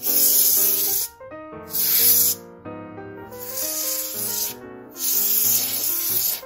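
Can of compressed air duster sprayed through its straw nozzle in four short hissing bursts, each up to about a second and a half long, blowing dust out from between laptop keys.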